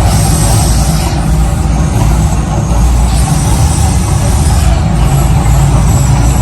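Mirage volcano show's eruption soundtrack: a loud, steady deep rumble with a rushing hiss over it, the simulated volcanic eruption going at full force.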